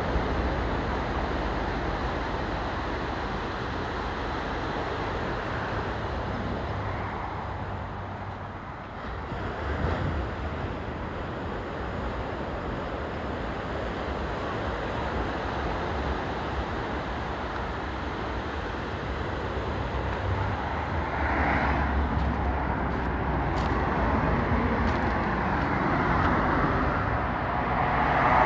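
Steady outdoor noise of surf and wind, giving way to road traffic with cars passing, which grows louder near the end.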